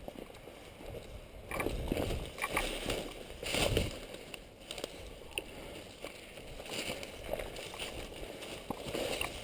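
Footsteps and rustling through dry brush and dead stalks, coming in irregular bursts.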